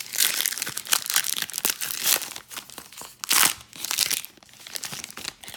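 Foil wrapper of a Topps Heritage baseball card pack being torn open and crinkled by hand, in a run of loud crackly bursts, the loudest about three and a half seconds in.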